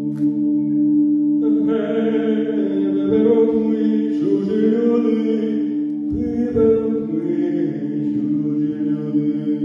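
Several voices singing a slow song in parts. Low notes are held steady underneath, and higher voices come in about a second and a half in with a wavering melody.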